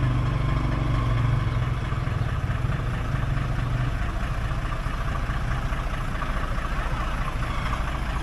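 Hino truck's diesel engine running at low revs as the truck creeps slowly forward, a steady low hum that fades somewhat about halfway through.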